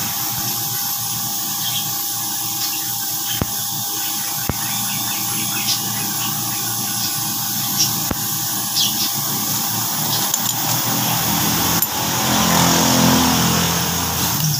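Scattered light metallic clicks and clinks as new clutch plates are fitted by hand onto a Yamaha motorcycle clutch hub, over a steady background hiss.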